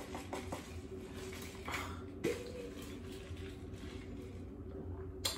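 Faint sips and swallows of a drink from a plastic shaker bottle over a low steady hum, with one sharp click near the end.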